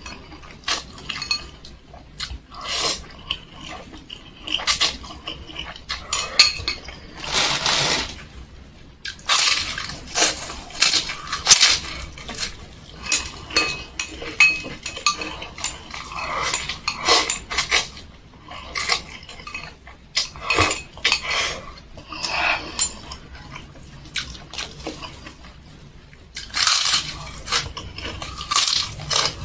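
Close-miked eating: slurping mie ayam noodles and chewing, with chopsticks knocking against the stainless-steel bowl. Short wet strokes come in irregular bursts, with a few longer slurps about a second long.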